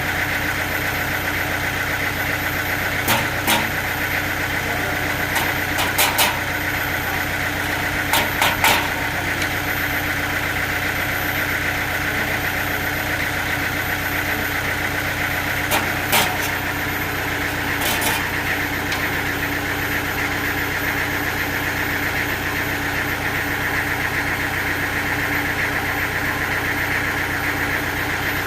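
Sawmill machinery running steadily with a constant hum, broken by a few short sharp knocks, a cluster of them between about 8 and 9 seconds in.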